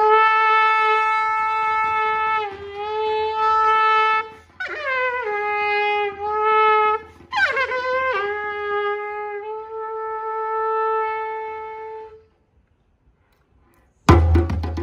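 Solo trumpet playing long held notes near one pitch, with small bends and upward scoops into the notes about five and seven seconds in, stopping about twelve seconds in. After a short silence, a djembe comes in with loud hand strikes near the end.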